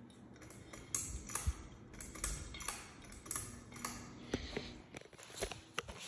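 Irregular light clicks and knocks, about a dozen over a few seconds, with no even rhythm.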